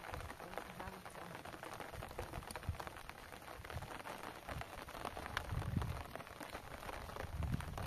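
Small wood fire crackling and hissing with a steady run of small pops, with a few low rumbles near the middle and end.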